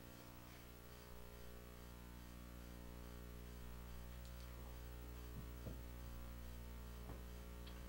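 Quiet room tone dominated by a steady electrical mains hum, with a few faint soft knocks in the second half.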